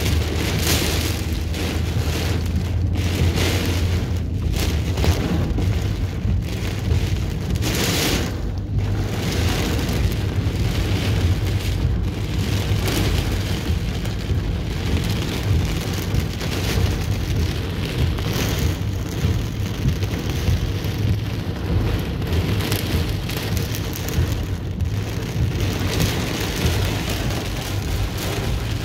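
Torrential rain drumming on a car's roof and windshield, heard from inside the cabin, over the low rumble of the car moving in traffic. The downpour swells and eases in surges.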